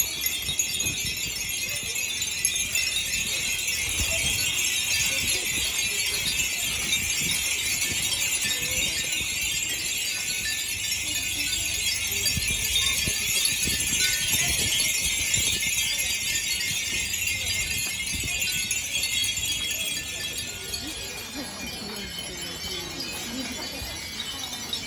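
Many Japanese furin wind bells tinkling together in a dense, continuous high jingle that eases off slightly in the last few seconds.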